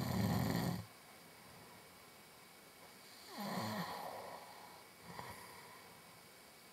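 A man snoring in his sleep: a loud low snore at the start, then a softer snore about three and a half seconds in.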